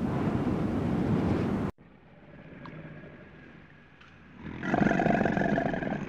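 Wind rumbling on the microphone cuts off suddenly about two seconds in. From about four and a half seconds, a large wild animal gives a loud, rough, pulsing roar.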